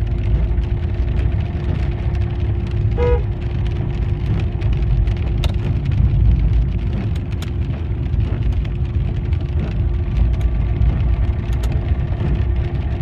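Inside a moving car in the rain: a steady low rumble of engine and tyres on a wet road, with scattered ticks of raindrops hitting the car. One short high note sounds about three seconds in.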